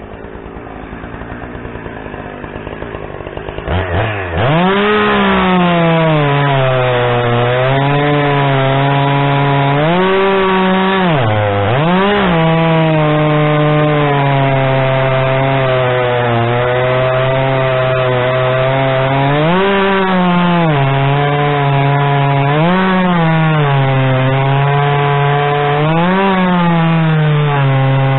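Gas chainsaw cutting firewood. It starts about four seconds in, after a rising hiss, and then runs hard. Its engine note sags under load during long cuts and jumps up briefly when the chain comes free.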